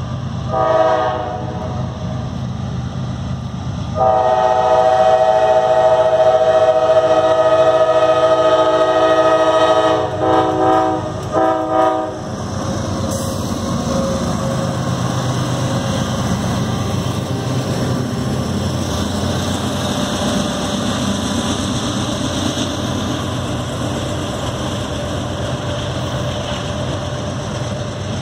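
CSX diesel freight locomotive horn sounding for a grade crossing: a short blast, a long blast of about six seconds, then two short blasts. The locomotives then pass close by, running loudly, followed by the freight cars' wheels rolling and rattling on the rails.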